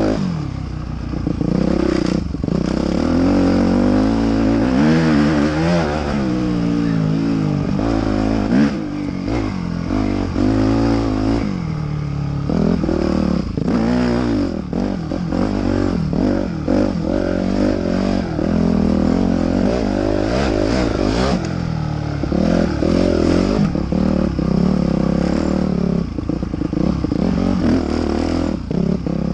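Motocross bike engine running hard, its pitch rising and falling over and over as the throttle is opened and closed and the gears change through the corners.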